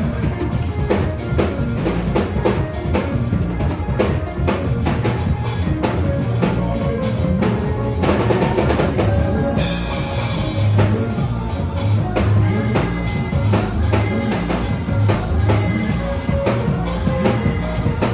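Music driven by a drum kit, with a steady beat of bass drum and snare strikes. A cymbal wash comes in about eight seconds in and lasts a couple of seconds.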